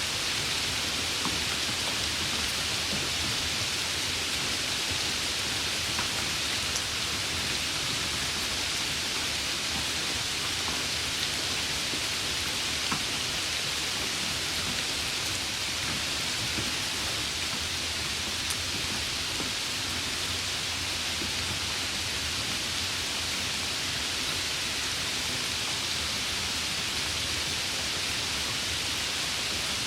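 Steady rain falling, an even hiss with scattered faint drop ticks, unchanging throughout.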